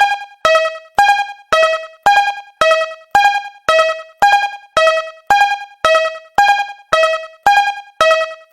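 Japanese railroad crossing warning bell ringing in a steady two-tone alternation, high then low, about two dings a second. Each ding dies away quickly.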